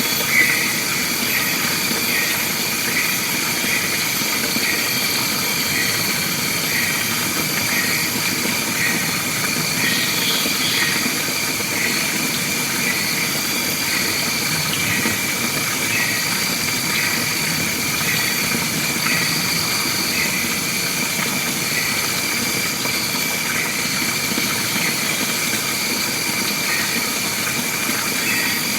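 Forest ambience: a steady insect drone with high, constant tones, over which a short call repeats evenly, a little under twice a second.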